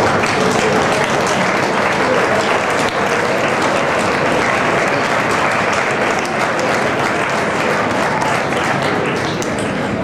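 Crowd applauding, with voices mixed in.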